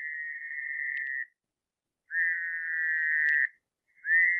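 Recorded Fowler's toad calls played back: steady, nasal buzzing trills at one high pitch, each about one and a half seconds long with a slight upward slur at the start. One call ends about a second in, a second follows about two seconds in, and a third begins near the end.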